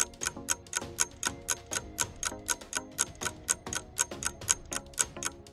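Quiz countdown-timer sound effect: steady clock-like ticking, about four ticks a second, over soft background music.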